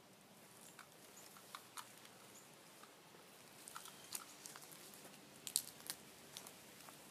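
Irregular light crackling and crunching of footsteps on dry pine straw and mulch, with the sharpest crunch about five and a half seconds in.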